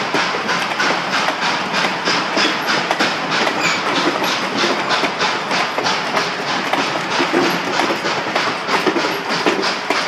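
Passenger coaches of the Reading & Northern steam train rolling past close by, their steel wheels clicking steadily over the track, several clicks a second, over a constant rumble.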